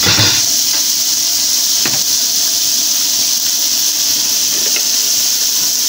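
Chopped onion, green bell pepper, leek and celery sizzling steadily in a little oil in an aluminium pot, with a few faint pops.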